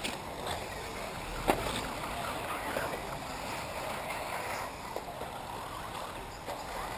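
Electric 1/8-scale off-road RC buggies running on the dirt track, a steady rushing noise of tyres and drivetrains, with a sharp click about one and a half seconds in.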